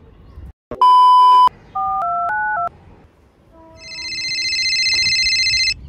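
Telephone sounds: a loud electronic beep, then four quick keypad dialing tones, then a warbling electronic phone ring for an incoming call that swells in volume and cuts off suddenly near the end.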